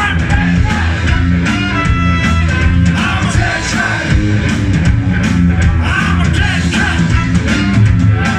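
Live rock band playing loudly: a stepping bass line, electric guitar and drums with a singer, heard from within the audience.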